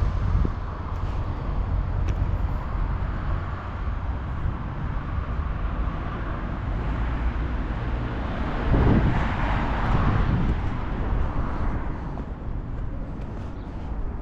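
Road traffic outdoors over a steady low rumble, with one vehicle swelling past about nine seconds in.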